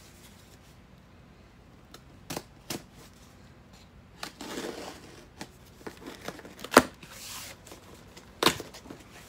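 Cardboard shipping box being cut open and handled: a blade slitting the packing tape, with scattered knocks, scrapes and rustles of the cardboard flaps, the sharpest about two-thirds of the way through and again near the end.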